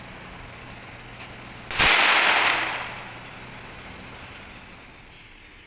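A single .22 pistol shot about two seconds in, followed by an echo that fades over about a second.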